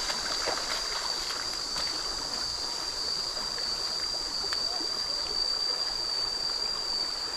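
Stream water flowing steadily, with a steady high-pitched tone running over it and a few faint splashy steps in shallow muddy water in the first couple of seconds.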